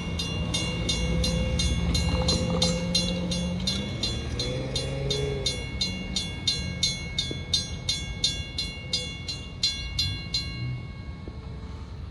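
Railroad crossing bell ringing steadily, about three strokes a second, stopping near the end, over the low rumble of a passing Long Island Rail Road diesel train.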